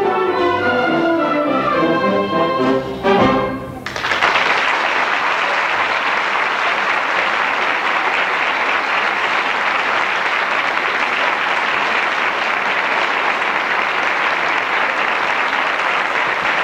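Wind band playing the closing bars of a pasodoble, brass and woodwinds ending on a final chord about four seconds in. Then steady audience applause.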